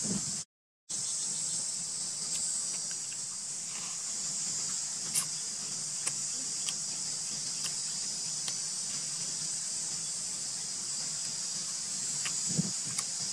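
Steady high-pitched drone of an insect chorus. It cuts out completely for a moment about half a second in, and a few faint clicks sound over it.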